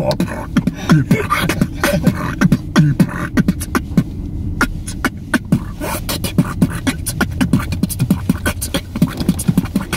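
A man beatboxing: mouth-made drum sounds, sharp clicks, kicks and snares, over low hummed notes. The beat gets busier and faster about halfway through.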